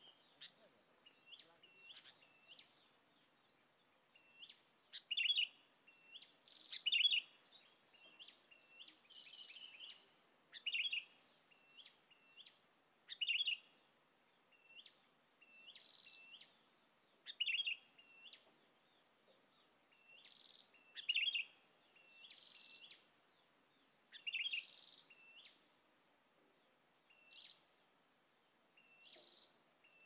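Sooty-headed bulbuls calling: short bright chirping notes repeat throughout, with a louder call every three to four seconds and softer notes between.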